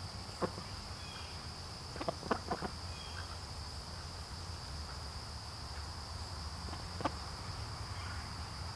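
A steady high-pitched insect chirring, as of crickets, under a few short crackling clicks from ducks' bills working through dry fallen leaves, the clicks clustered about two seconds in and again near seven seconds.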